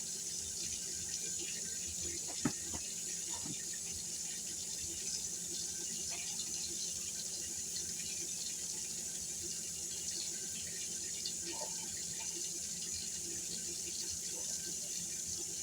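Kitchen tap running steadily into a sink, with a short knock about two and a half seconds in.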